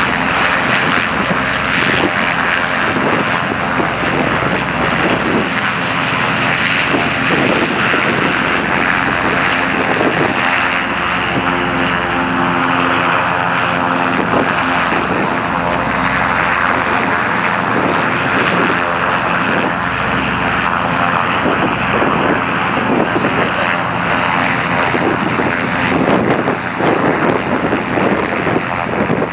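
Propeller engine of an IAR 46S light aircraft in flight overhead, a steady drone that swells and fades a little as it passes.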